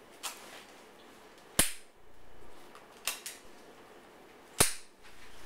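Sharp metal clicks and snaps from a folding kick scooter's stem and handlebar latches as it is worked by hand. The two loudest snaps come about three seconds apart, with fainter clicks between them.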